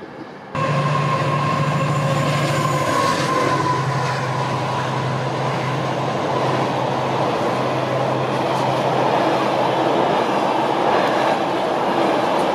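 Container freight train running past at speed, close by: a loud, steady noise of wheels on rail from the passing flat wagons. It starts suddenly about half a second in. A high tone and a low hum fade away over the first few seconds.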